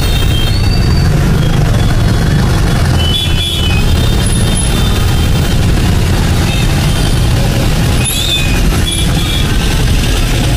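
Dense city road traffic: a steady rumble of many vehicle engines and tyres, with brief high-pitched tones now and then.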